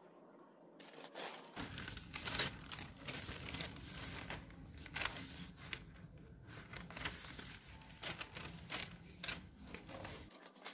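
Newspaper crinkling and tearing, a run of irregular rustles and crackles that starts about a second in.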